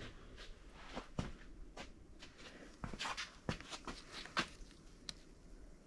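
Faint, scattered light clicks, taps and rustles of gloved hands handling a paper Plastigauge scale and parts at the crankshaft, louder for a moment about three to four and a half seconds in.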